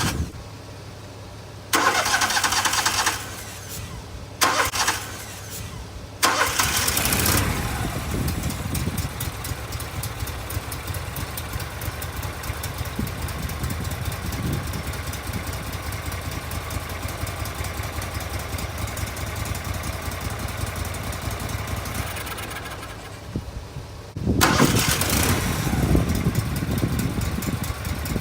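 Wood-Mizer LT15 sawmill engine being started: a few short bursts, then the engine runs steadily from about six seconds in. Near the end it dips briefly and comes back louder.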